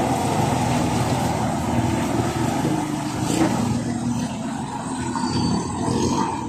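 Ten-wheeler dump truck's diesel engine running at low speed as the loaded truck pulls slowly through a turn.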